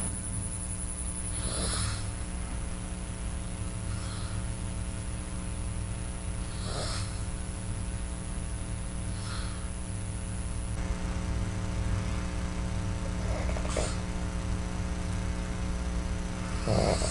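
A sleeping person's quiet breathing, a faint short breath every few seconds, over a steady electrical hum.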